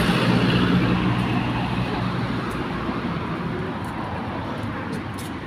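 Road traffic: a motor vehicle's low engine drone, loudest at first and fading away as it passes, over a steady wash of traffic noise.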